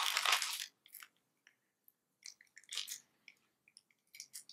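A plastic mayonnaise sachet is torn open with the teeth in one loud rip, followed by a few short, quiet crackles as the sachet is handled and squeezed.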